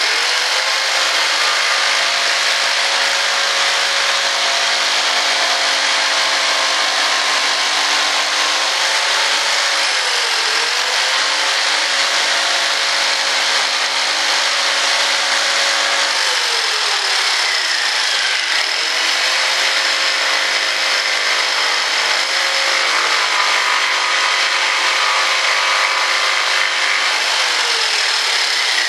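A corded handheld power tool runs steadily while cutting wood. Its motor pitch sags and recovers three times as it takes load.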